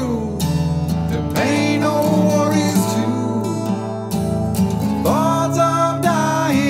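Background music: a song with acoustic guitar, the vocal holding long notes.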